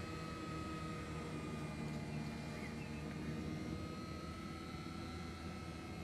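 Enduro Premium caravan mover's electric motor and gearbox running under load as it drives the caravan wheel: a steady whining drone with a high tone over a deeper hum.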